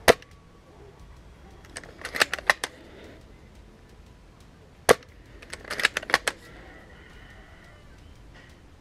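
Spring-powered bolt-action airsoft sniper rifle (Tokyo Marui VSR-10 G-Spec) firing two single sharp shots, one right at the start and one about five seconds in. Each shot is followed within a second or two by a quick run of clicks as the bolt is worked to chamber the next BB.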